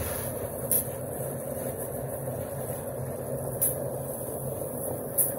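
Portable concrete mixer running steadily, with three brief sharp crunches of shovels biting into a gravel pile.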